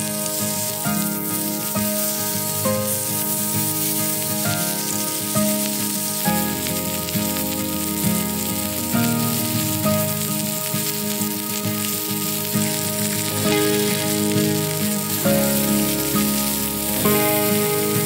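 Strips of meat sizzling on a hot griddle plate, a steady frying hiss, under background music with held chords that change every few seconds.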